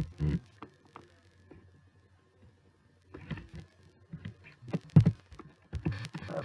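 Scattered computer keyboard key clicks: a few near the start, then a denser run in the second half, with low muffled thumps among them.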